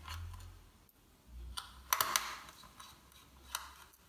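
Precision screwdriver turning out a small screw from a laptop circuit board: a handful of light metallic clicks and ticks, the loudest cluster about halfway through.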